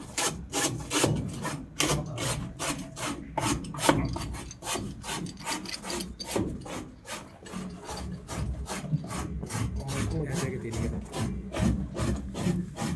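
Rhythmic rasping strokes, about three a second: a blade sawing back and forth through a fighting bull's protective horn cover to cut it off.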